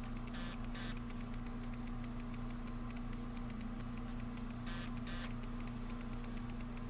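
Steady electrical hum with an even hiss from the bench test equipment, broken by a few brief clicks in two pairs: one pair about half a second in and another about five seconds in.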